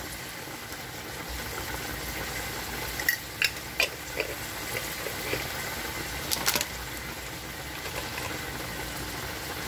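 Chicken and onions in olive oil sizzling gently in a stainless-steel pot on the hob, a steady hiss, with a few light clicks of a spoon against a spice jar between about three and seven seconds in.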